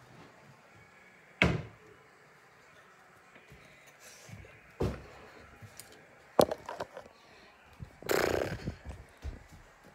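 A wooden kitchen cabinet door shut hard about a second and a half in. Two more knocks follow, at about five seconds and six and a half seconds, as someone climbs down off the counter, then a short rustle of the phone being picked up and handled close to the microphone near the end.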